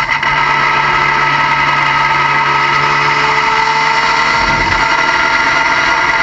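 Car engine running steadily, with a constant high-pitched whine over it and a low hum that drops away about four seconds in.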